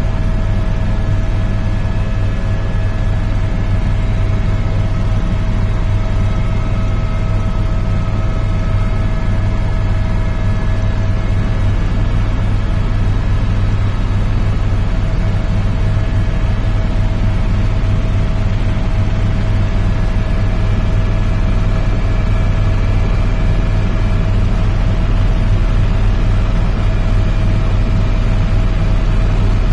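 Helicopter in flight: a loud, steady low drone of rotor and engine with a constant higher whine over it.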